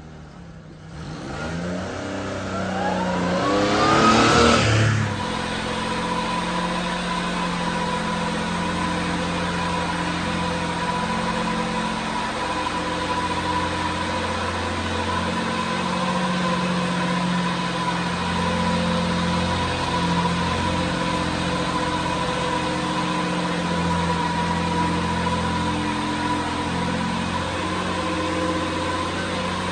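1997 Mitsubishi Minicab's small three-cylinder engine, revving up with a rising pitch over the first few seconds, then idling steadily.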